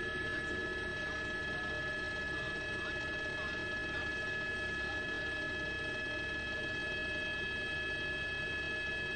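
Steady helicopter noise: a turbine whine held at several fixed high pitches over a low, rapid rotor chatter, unchanging throughout.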